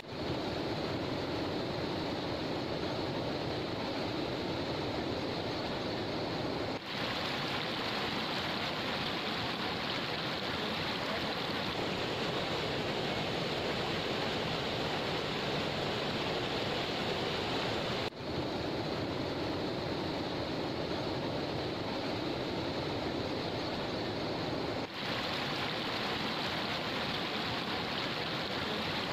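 Floodwater of a swollen river rushing and pouring over a low causeway, a steady rush of water. It breaks off briefly three times, where one shot gives way to the next.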